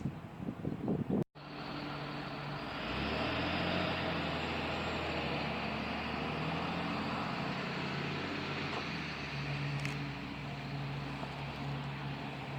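A motor vehicle's engine running steadily, a low hum under a hiss that swells about three seconds in, after the sound cuts out briefly about a second in.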